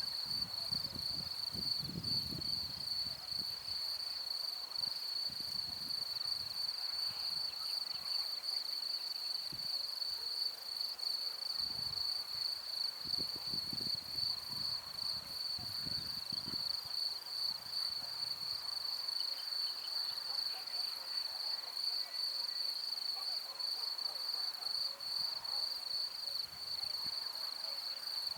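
Crickets chirping in a steady, high-pitched, finely pulsing trill, with a few soft low rumbles.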